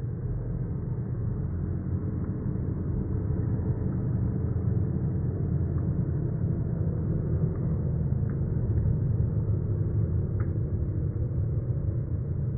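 Steady low rumble of wind buffeting the phone's microphone, with a few faint ticks.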